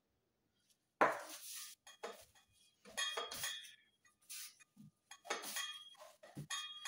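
Soft bread dough being kneaded by gloved hands on a floured wooden board: irregular pushing, patting and scraping strokes starting about a second in, with a few light metallic clinks from a bench scraper being handled and set down.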